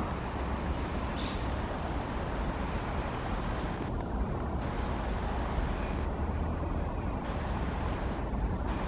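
Steady heavy rain, with a low rumble of wind on the microphone. There is a single sharp tick about four seconds in.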